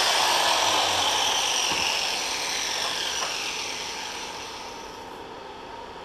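Hand-held angle grinder spinning down after being switched off: a falling whine that fades away over a few seconds.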